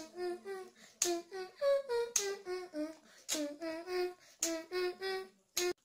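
A boy's voice humming a wordless tune in short notes, with a sharp beatboxed click about once a second keeping time. It cuts off abruptly near the end.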